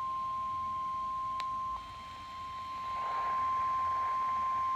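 NOAA Weather Radio warning alarm tone: a steady single tone near 1 kHz, marking a new warning-level alert. Radio static swells up behind it about three seconds in.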